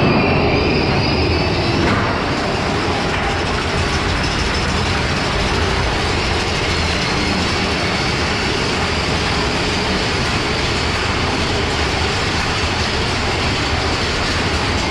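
Big Thunder Mountain Railroad mine-train roller coaster running on its track, heard from onboard: a loud, steady rumble and clatter of the train's wheels. A higher screech fades out about two seconds in.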